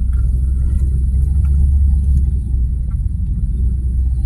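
A steady low rumble, with a few faint light ticks over it.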